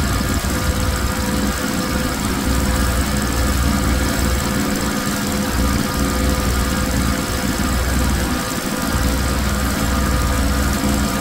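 Pressure washer running steadily: a motor hum under the hiss of the high-pressure water spray hitting a rug.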